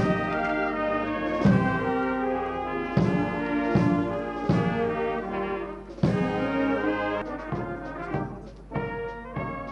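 Military brass band playing, with heavy drum beats under the brass; the playing grows quieter about seven seconds in.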